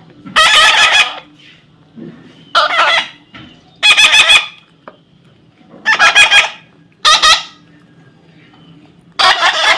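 Pet parrot squawking: six loud, harsh calls of about half a second to a second each, spaced one to two seconds apart.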